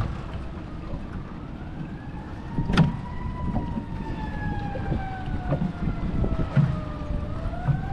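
A distant emergency-vehicle siren wailing, its pitch sliding slowly down over several seconds and then rising again near the end, over wind rumbling on the microphone. There is a single sharp knock about three seconds in.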